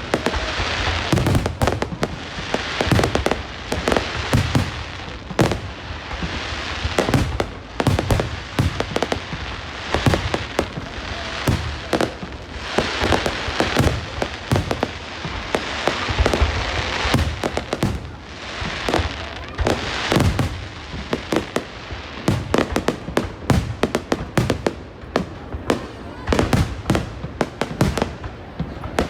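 Fireworks display: aerial shells bursting in quick, irregular succession, several bangs a second, over a continuous crackling haze.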